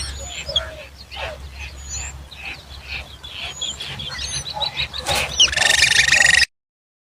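Birds calling: a run of short squawks and chirps that rise and fall in pitch, then a louder drawn-out call about five seconds in, after which the sound cuts off suddenly.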